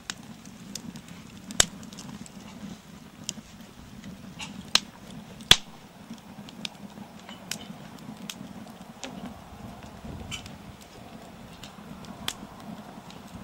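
Wood campfire crackling in a fire pit, with irregular sharp pops, the loudest about five and a half seconds in, over a steady low hum.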